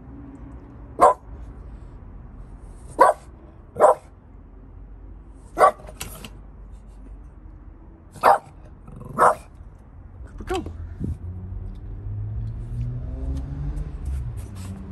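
A dog barking in short single barks, about eight of them spread over the first eleven seconds, then a low rumble builds in the last few seconds.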